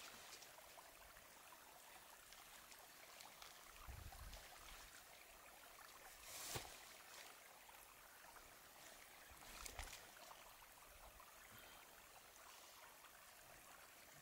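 Near silence with a faint steady hiss, broken by a few soft handling noises from a camping hammock and its suspension being rigged: a low bump about four seconds in, a sharper click with a rustle about six and a half seconds in, and a smaller rustle near ten seconds.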